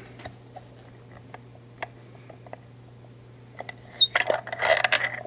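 Handling noise as hands work a lock cylinder out of a bench vise: scattered light clicks, then a louder burst of clicking and rubbing about four seconds in.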